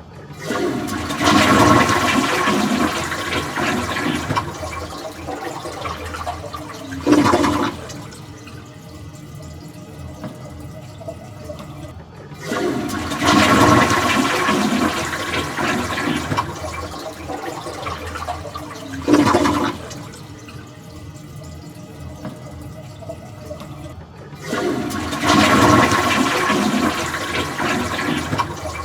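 Toilet flushing three times, about twelve seconds apart: each flush is a loud rush of water lasting about seven seconds that ends in a brief louder surge, followed by quieter running water before the next.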